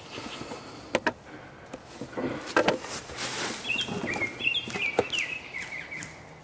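A few sharp clicks and knocks, then a bird calling a quick run of short high notes through the second half.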